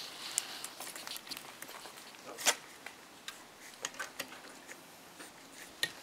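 Small plastic clicks and taps as an old windshield wiper blade is worked off its wiper arm by hand, the loudest click about two and a half seconds in.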